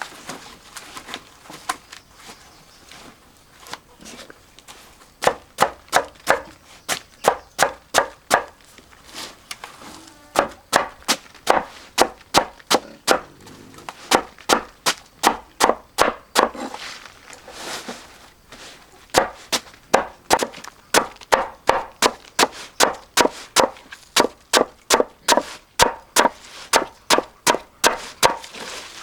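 Rapid knife chopping against a wooden board, about two to three strokes a second, in runs broken by short pauses; the chopping of taro stalks for animal feed. The strokes are lighter for the first few seconds, then sharp and even.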